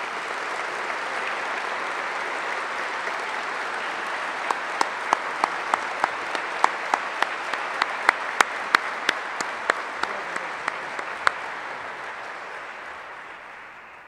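Audience applauding, with one nearby person's louder, separate claps at about three a second standing out through the middle. The applause fades away near the end.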